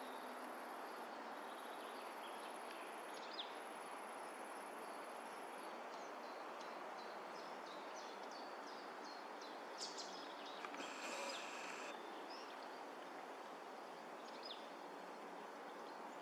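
Small birds singing in woodland, faint: a quick series of short high notes about halfway through, then a few louder calls, over a steady rushing background noise.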